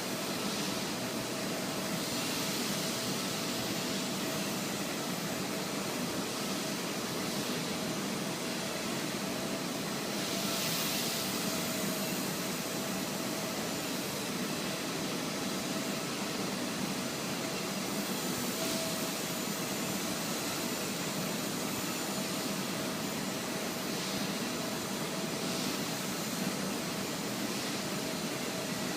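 Blade 130 X micro RC helicopter in flight: its electric motors and spinning rotor blades make a steady whine over a constant rushing hiss that swells briefly every few seconds.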